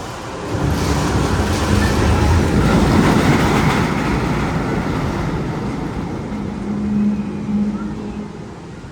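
Magnum XL 200 roller coaster train rumbling through its tunnel, swelling over the first few seconds and then fading, with a short steady hum near the end.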